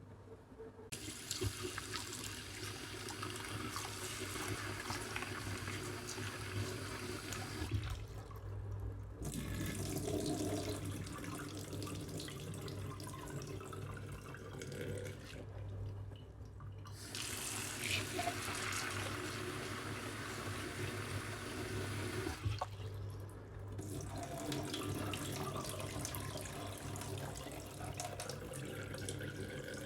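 Tap water running into a sink in four long stretches with three short breaks, over a steady low hum.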